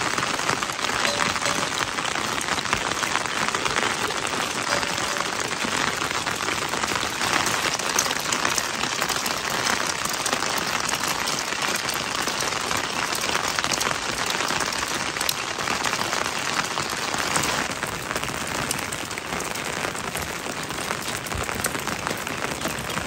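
Steady rain falling, a dense patter of drops, which cuts off suddenly at the end.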